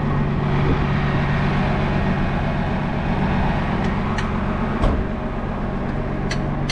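Heavy-duty tow truck's engine idling steadily, with a few sharp clicks of gear being handled around the middle and near the end.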